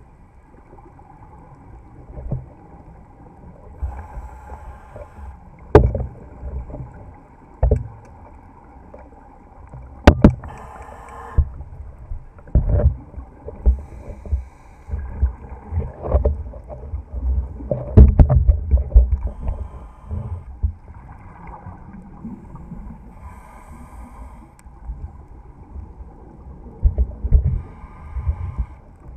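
Scuba diver breathing underwater through a regulator, heard through an underwater camera housing. A hiss on each inhalation comes roughly every five seconds, with low bubbling rumbles of exhaled air between them, the longest about 18 seconds in. There are a few sharp knocks against the housing.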